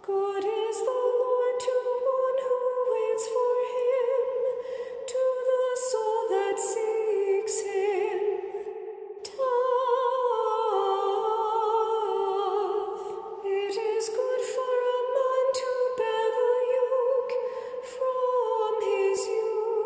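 A woman's voice singing liturgical chant unaccompanied, in long phrases moving in small steps of pitch, with a short break for breath about nine seconds in.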